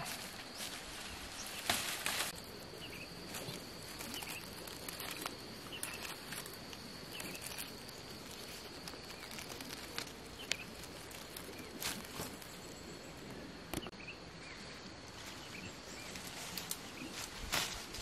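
Woodland ambience: a steady high-pitched insect drone with faint scattered bird chirps, broken now and then by sharp snaps and rustles of twigs and leaves in the undergrowth.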